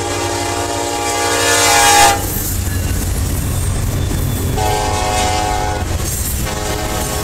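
Norfolk Southern SD70ACE diesel locomotive's air horn sounding as the train passes close by. A long blast swells and cuts off about two seconds in as the locomotive goes past, a shorter blast follows, and another starts near the end. The low rumble of the diesel engines and the rolling freight cars runs underneath.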